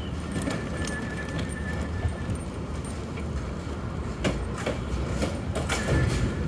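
Street traffic heard from a moving rickshaw: a steady low road rumble with frequent rattles and knocks. A thin, steady whine runs through the first two seconds or so, and a cluster of sharper knocks comes in the second half.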